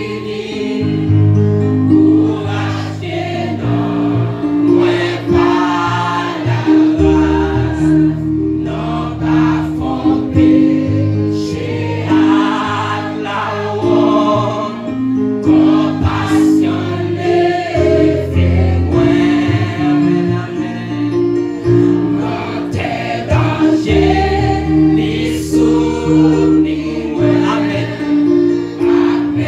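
Gospel worship song in Haitian Creole: a man sings into a microphone over instrumental accompaniment, with held bass notes that change every couple of seconds.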